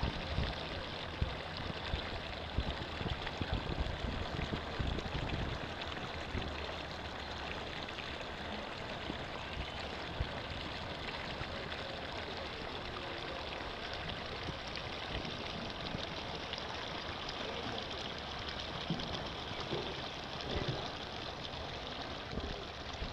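Water spilling steadily over the tiled edge of a pool's overflow wall, a continuous trickling and splashing, with a few low bumps in the first several seconds.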